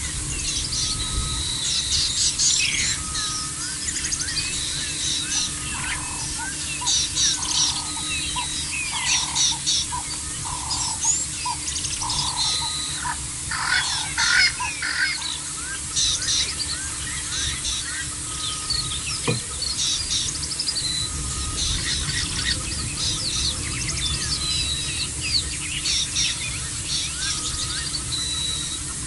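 Several small wild birds chirping and whistling, many short overlapping calls, with a lower note repeated about once a second from about six to thirteen seconds in. A steady low rumble runs underneath.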